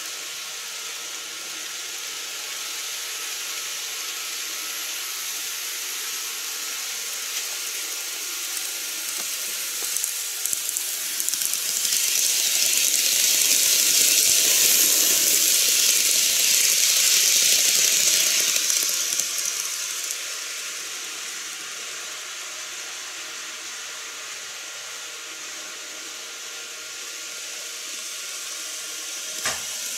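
KATO 205 series model train running past on the track: a hissing rumble of wheels and motor that grows as it approaches, is loudest about halfway, and fades as it goes away. A faint steady tone runs underneath, and there is a single click near the end.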